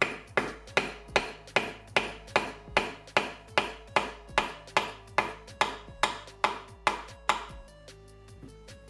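A mallet striking a pronged leather stitching chisel, driving it through a leather strap into a wooden board to punch stitch holes. There are about twenty steady blows, roughly two and a half a second, which stop about seven seconds in. Background music plays underneath.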